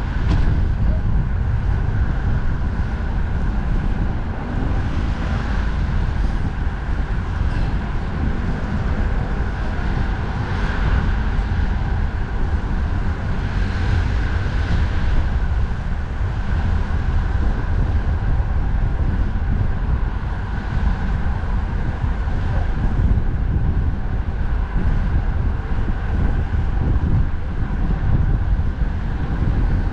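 Strong wind buffeting the microphone of a camera on a moving bicycle: a loud, steady low rumble, mixed with the steady noise of road traffic alongside.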